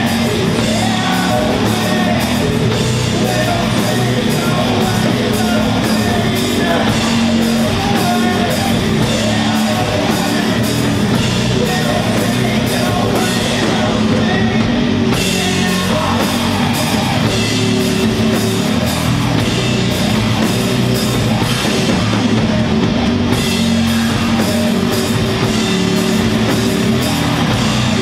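Doom metal band playing live: loud, sustained heavy guitar and bass chords over drum kit with frequent cymbal strikes.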